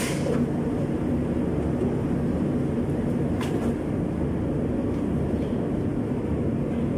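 Steady low mechanical drone from running machinery, with one short click about three and a half seconds in.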